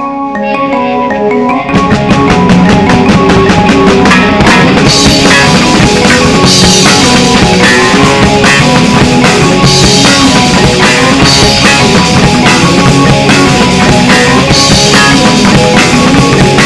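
Live rock band playing an instrumental intro: a keyboard picks out single notes, then about two seconds in the drum kit, electric guitar and bass come in together and play loud and steady, with cymbal crashes every few seconds.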